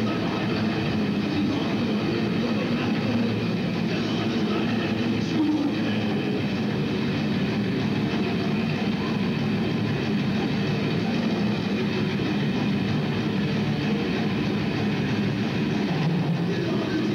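Metal band playing live: distorted electric guitars, bass guitar and drums in a dense, steady wall of sound, heard from within the audience.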